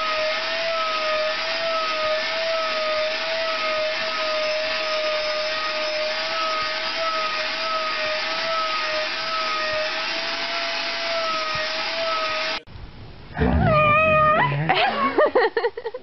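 Vacuum cleaner running steadily with a slightly wavering whine while its hose is run over a German Shepherd's coat. It cuts off suddenly after about twelve seconds, and a dog then lets out a loud, wavering yowl lasting about a second and a half.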